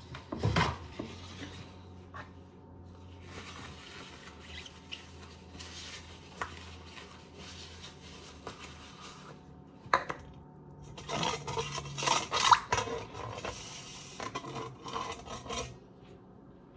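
Kitchen utensils scraping and clattering against a stainless steel mixing bowl, with a few sharp knocks and a louder stretch of clatter about two-thirds of the way through.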